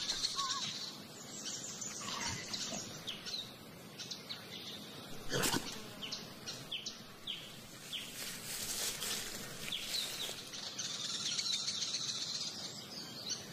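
African bush ambience: small birds chirping in short falling notes, over a high insect buzz that fades out after the start and comes back near the end. There is one sharp click about five and a half seconds in.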